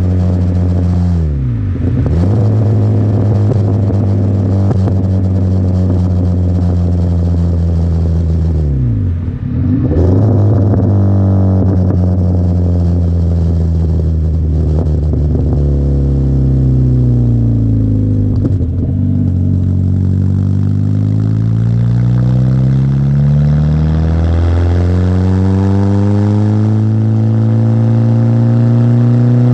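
1997 Peugeot 106 XR's 1.1-litre four-cylinder petrol engine through a custom exhaust, running steadily for long stretches, with the revs dipping and coming back up twice. In the second half the revs fall and rise repeatedly, climbing again near the end.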